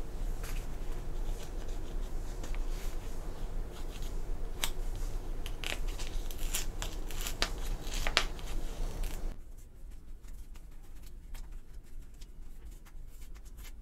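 Paper envelope being torn open by hand: a string of short rips and paper crackles, loudest in the middle, fading to faint rustles in the last few seconds.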